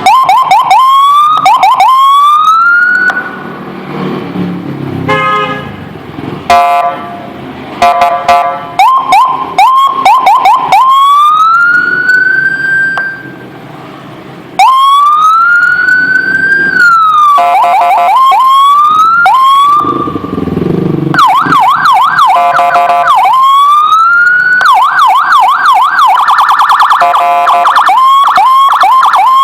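Replica CJB 100A electronic siren through a 45-watt speaker, cycling through its tones. Rising wails climb and cut off, fast up-and-down yelps and warbles come in between, and steady horn-like blasts sound too, with a couple of short pauses between patterns.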